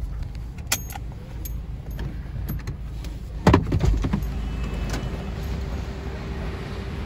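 Inside a car with a steady low rumble, likely the engine idling, light clicks as things are handled, then a cluster of heavy knocks about three and a half seconds in as a man climbs in at the open driver's door.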